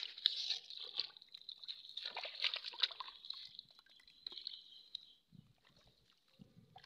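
Shallow muddy water splashing and dripping, with small rustles and clicks from a plastic basket and grass, as a small catfish is handled by hand and put into a bucket of water. The splashing is busiest in the first three seconds and dies down after about five.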